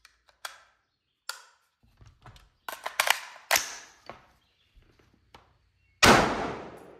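AR-15 carbine (Colt SOCOM) being handled, with a string of sharp metallic clicks and clacks, then a single rifle shot about six seconds in whose report fades over about a second.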